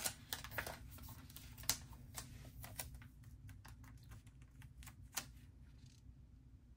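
Faint scattered clicks and taps of hands and fingernails handling a sticker sheet and paper while peeling stickers off and laying them onto a planner page. Most of the taps come in the first three seconds, with a last one about five seconds in.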